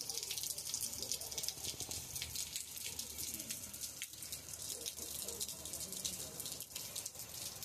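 Heavy rain falling on a flooded street, with water running across it: a steady watery hiss dotted with many small drop splashes.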